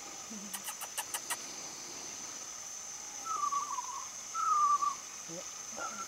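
Rainforest ambience: a steady high-pitched insect drone, a quick run of six clicks about a second in, then two short falling whistled calls from an animal in the trees, the second one louder.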